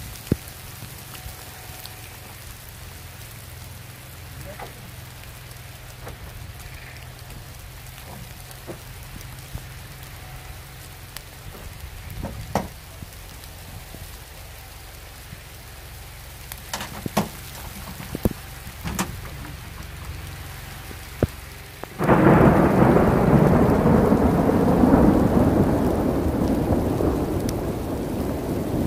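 Steady rain with sleet, with scattered sharp ticks of drops striking. About 22 seconds in, a loud thunderclap breaks suddenly and rumbles on, slowly fading.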